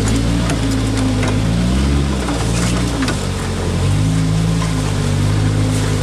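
Off-road 4x4's engine running, revving up and back down about two seconds in, then settling to a steady lower note. Scattered light clicks over it.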